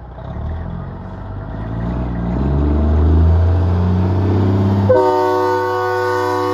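Semi truck's diesel engine pulling and rising in pitch as the truck approaches. About five seconds in, a loud air horn of several notes sounding together starts suddenly and is held.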